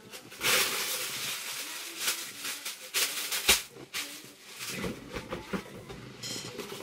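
Plastic packaging rustling and crinkling as a hand rummages through a box of collectables, with several sharp clicks, the loudest about three and a half seconds in.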